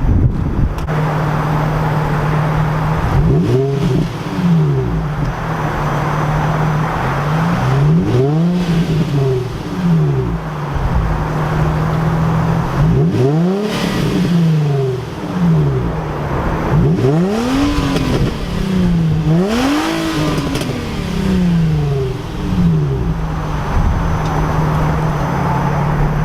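Infiniti G35's 3.5-litre V6 on its stock exhaust, heard while driving: a steady engine drone whose pitch rises and falls in several smooth sweeps, over a steady rush of noise.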